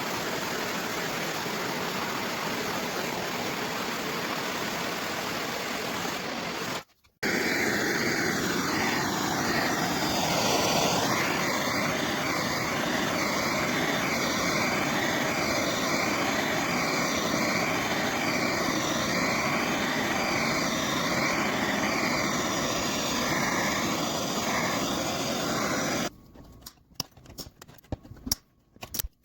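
Heat gun blowing steadily, with a wavering motor whine over the rush of air. It stops briefly about seven seconds in and starts again, then gives way to a few quiet clicks and handling sounds near the end.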